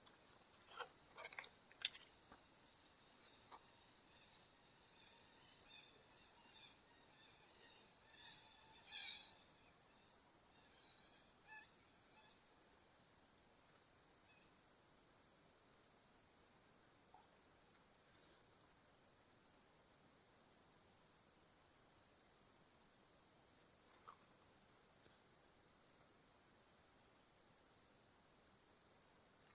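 Steady, high-pitched insect chorus of crickets or cicadas, droning without a break, with a few faint clicks in the first couple of seconds.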